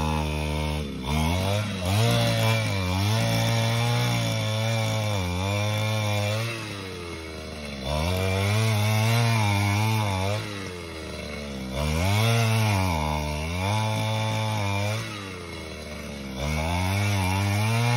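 Handheld two-stroke petrol earth auger drilling into soil, its engine running at high revs. Four times the pitch and loudness drop back briefly and then climb again as the throttle is eased and reopened.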